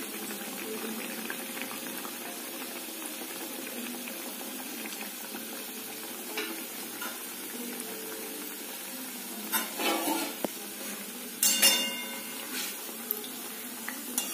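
Chhena jilapi deep-frying in oil in a metal kadai on a low flame, giving a steady sizzle. About ten and twelve seconds in come a few clinks and scrapes of a metal slotted spoon against the pan.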